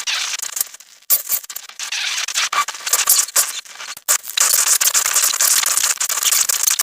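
Dolphin-style sound effect: dense, rapid clicking and crackling buzz, high-pitched, with brief breaks about a second in and again around four seconds.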